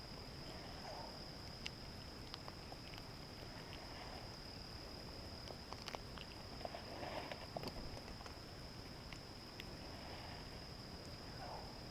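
Steady high-pitched insect drone, with scattered small ticks and soft rustles over it.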